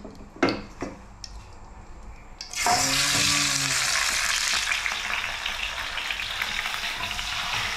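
A few light clicks of chopsticks against a metal bowl, then marinated rat meat is laid into hot oil in a frying pan and a loud, steady sizzle starts suddenly about two and a half seconds in.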